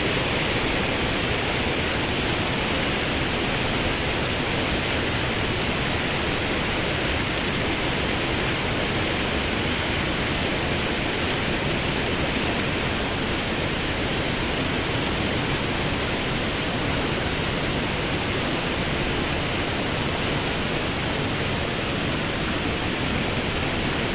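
River water rushing over rocks and rapids: a steady, unbroken rush of water.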